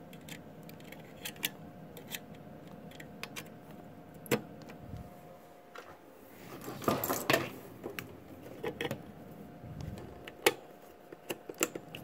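Scattered clicks and light rattles of cables and connectors being handled and plugged into a desktop motherboard's ports, with a busier stretch of handling noise a little past the middle.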